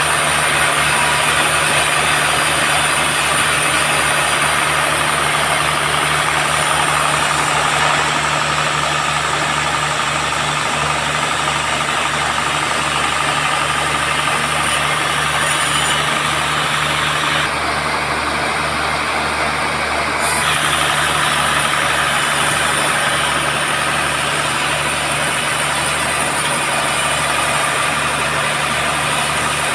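Band sawmill running steadily as it saws through teak, a constant low machine hum under a continuous sawing hiss, with a short change in the hiss just past the middle.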